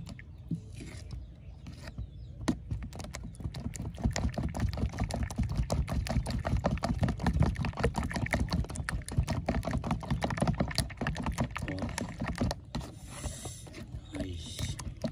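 Metal spoon beating eggs in a bowl: a fast, uneven run of clicks and taps as the spoon strikes the bowl, mixed with the sloshing of the egg. It picks up and gets louder about two seconds in.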